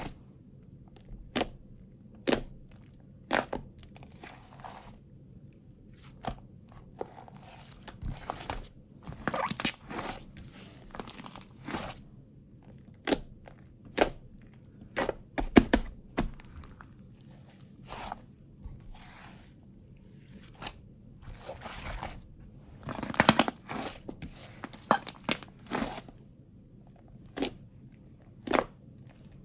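Clay-mixed slime being squeezed and pressed by hand, giving irregular sharp popping clicks with denser runs of crackling in between.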